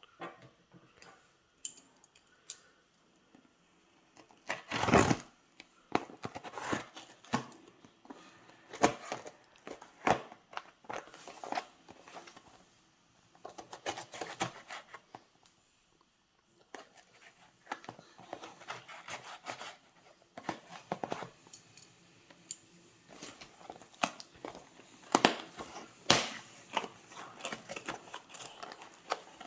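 Plastic parcel packaging being handled, crinkled and torn open by hand, in irregular crackly bursts and clicks, loudest about five seconds in.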